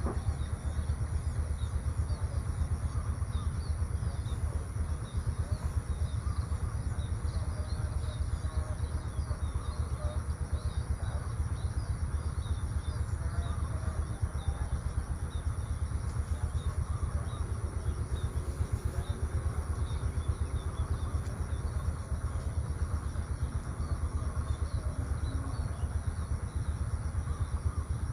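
Outdoor rural ambience: a steady low rumble under a constant thin high-pitched drone, with scattered faint chirps.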